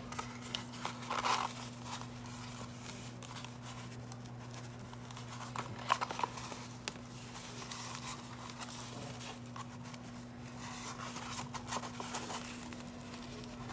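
Tightly rolled brown kraft-paper firecracker wrapping being unrolled and handled, with scattered soft crinkles, rustles and small crackles. A steady low hum runs underneath.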